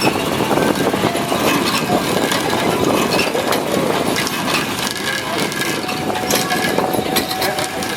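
Hand-cranked cable ferry working across the river: a dense clatter of knocks and clicks from the crank and cable, over a vehicle engine idling.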